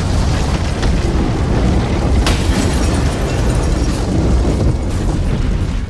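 Explosion sound effect: a loud, continuous rumbling blast with a sharp crack a little over two seconds in.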